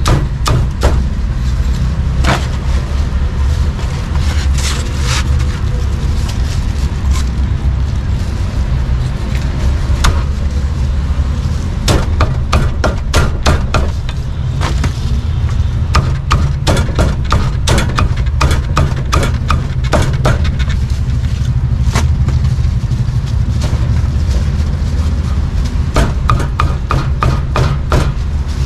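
A cleaver chopping roast meat on a wooden chopping block: sharp knocks in irregular runs, several a second, with short pauses between runs. A steady low rumble runs underneath.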